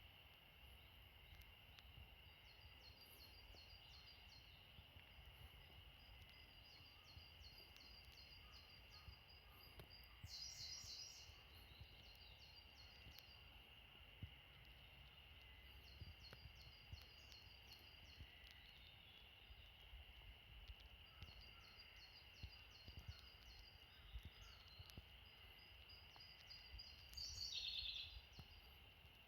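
Faint forest birdsong: a songbird repeats short phrases of quick, evenly spaced high notes every few seconds, with a louder trill about ten seconds in and another near the end. A steady high hum and a low rumble run underneath.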